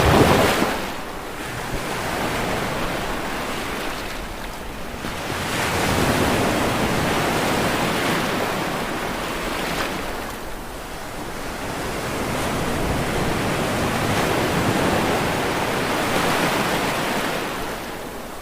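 Ocean waves breaking and washing up onto the shore, the surf swelling and falling back every few seconds, loudest at the very start.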